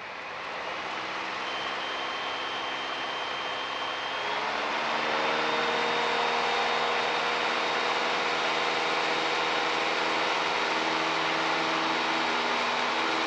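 Piper Warrior's four-cylinder Lycoming O-320 engine and propeller at takeoff power during the takeoff roll, heard inside the cockpit. The steady drone grows louder over the first few seconds, its pitch steps up about four seconds in, and then it holds steady.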